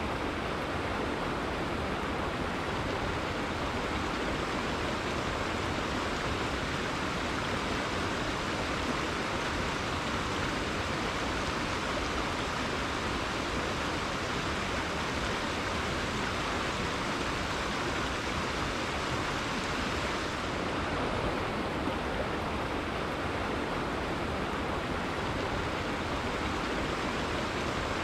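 River water flowing steadily, an even wash of noise with no single splashes or other sounds standing out.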